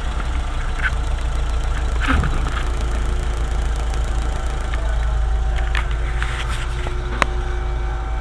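VW 2.0L ABA four-cylinder engine running steadily, a strong low rumble with scattered light clicks and ticks over it.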